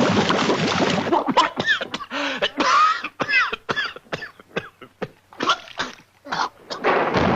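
A quick string of short cartoon sound effects: sharp pops and knocks mixed with brief arching pitch swoops, one after another with short gaps between them, then a dense noisy effect near the end.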